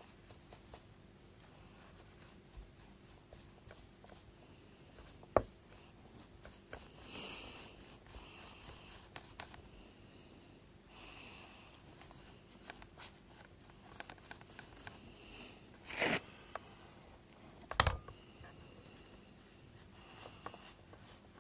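Plastic air filter cover of a Shindaiwa T270 trimmer being handled and fitted against the engine housing: light scraping and rustling, with a few sharp plastic clicks and knocks, the loudest two close together near the end.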